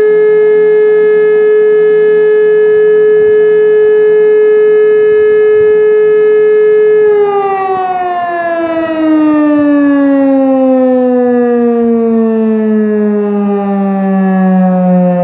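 E57 electromechanical civil-defence siren sounding the 'Probe' test-alarm signal: a loud steady tone, then about seven seconds in the power is cut and the pitch falls steadily as the rotor spins down.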